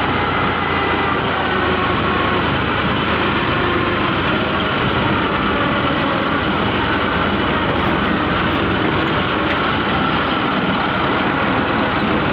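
Tractor engine running steadily under way, heard from the driver's seat, with an even held engine note.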